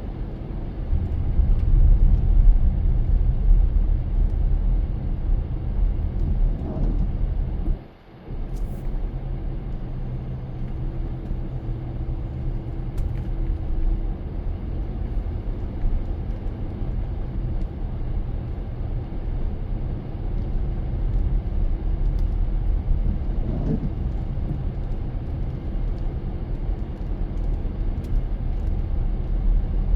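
Car driving, a steady low rumble of engine and road noise, with a brief sharp dip in the rumble about eight seconds in.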